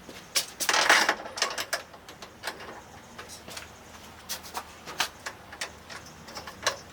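Irregular clicks and light knocks of hand work on the small metal parts of a vending machine mechanism, as a retaining clip is worked off, with a louder scraping rustle about a second in.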